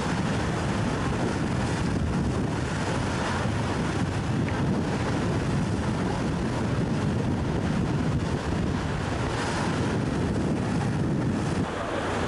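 Wind buffeting the microphone over the steady low drone of a tour boat under way. The low drone eases slightly near the end.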